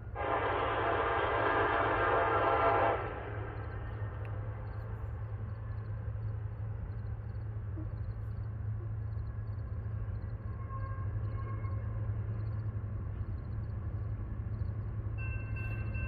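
Union Pacific diesel locomotive's air horn sounding one long blast of about three seconds, a chord of several tones, over a steady low hum. Near the end, thin steady tones of a grade-crossing warning bell begin.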